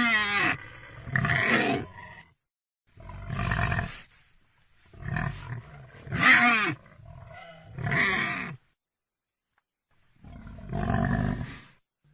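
Pig calling loudly: about six separate calls, each a second or so long, with silent gaps between them.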